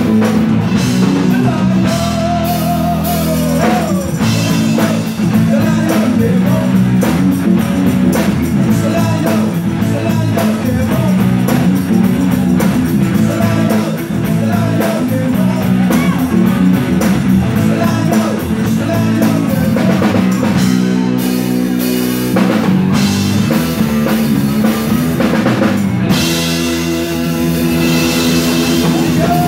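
Live rock band playing: electric guitars and bass over a drum kit. Near the end the cymbals grow louder and brighter.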